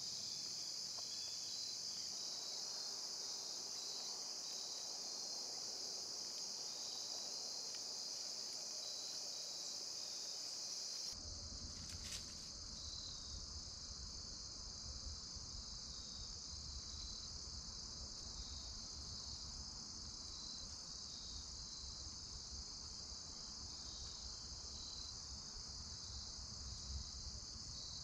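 Steady insect chorus of crickets, a continuous high shrill. About eleven seconds in, a low rumble comes in underneath, with a single brief click soon after.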